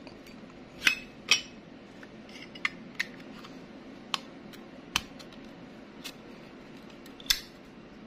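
Zippo lighter lids flipped open and snapped shut: about eight short, sharp metallic clicks at uneven intervals, the strongest about a second in and near the end. On the 1994 brushed brass emblem Zippo the emblem damps the lid's vibration, so it gives a click rather than the ringing 'cling'.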